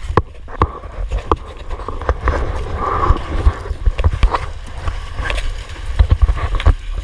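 Wind noise on the microphone and water against an outrigger boat's hull, with scattered short knocks and rubbing as a fisherman hauls in a nylon handline by hand.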